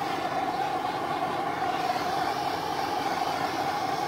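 A handheld heat tool blowing steadily on heat-shrink tubing over the crimped end of a steel guy wire: a constant rushing noise with a strong steady hum in the middle.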